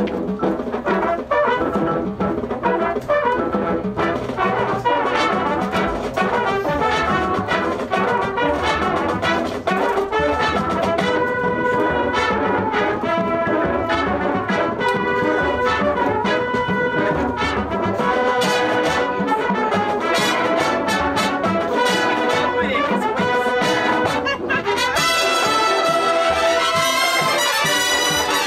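Drum and bugle corps playing: a full brass line over drums, with sharp percussion strokes through the passage. Near the end the horns settle onto one long, loud held chord.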